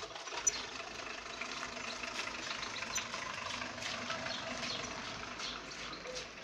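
Many small birds chirping and chattering at once in quick, overlapping short calls, over a steady low hum.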